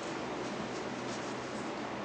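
Steady background hiss with a few faint soft clicks of people chewing and handling food at a table.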